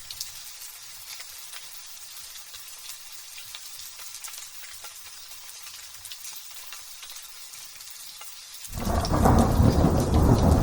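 Light drizzle pattering as a steady hiss with fine drop ticks. Near the end a loud, deep rumble of thunder starts suddenly and keeps going.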